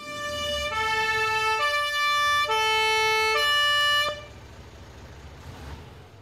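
Two-tone fire truck siren sound effect, alternating between a high and a low pitch about once a second. It cuts off about four seconds in, leaving a faint low engine rumble that fades away.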